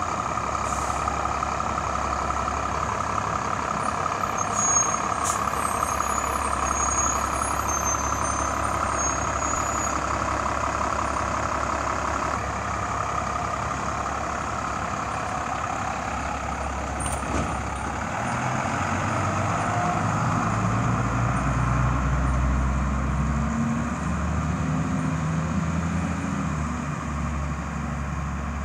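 Fire rescue truck's diesel engine running as the truck pulls out and drives off, with no siren. A deeper engine rumble builds about two-thirds of the way through.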